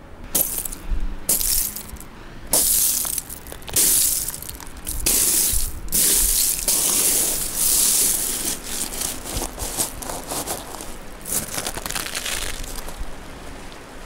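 Shell fragments crunching and rattling in a run of abrupt, crackling bursts that start and stop sharply, dense at first and thinning out, stopping about a second before the end.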